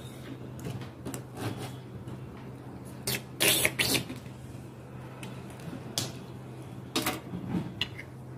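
Hard-baked cookies clicking and clattering against a glass serving plate and each other as they are picked up and set down. The loudest cluster of knocks comes three to four seconds in, with a few lighter clicks later, over a steady low hum.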